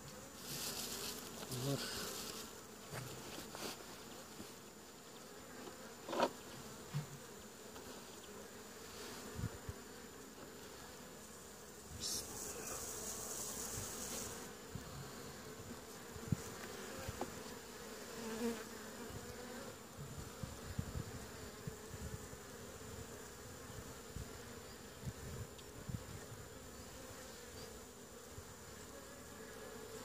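Honey bees buzzing around an open hive, a steady hum throughout. Over it come rustling of the plastic sheet on the hive near the start and again about twelve seconds in, then scattered knocks and scrapes as wooden frames and a hive tool are handled.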